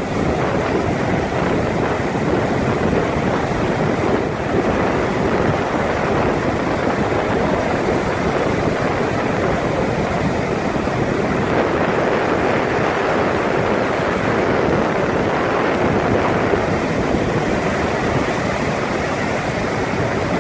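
Steady rush of ocean surf, waves breaking and whitewater washing through the shallows, with wind buffeting the microphone.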